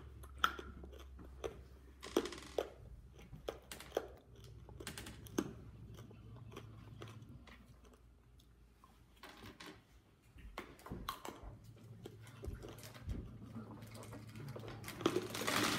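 Scattered small clicks and crunches of children handling hard candy pieces on a wooden table and chewing candy, with a louder rustling stretch near the end.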